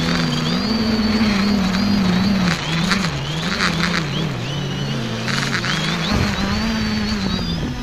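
X550 quadcopter's electric motors and propellers droning from close by, the pitch repeatedly rising and falling as the throttle changes, with a thin high motor whine above and a few brief bursts of hiss.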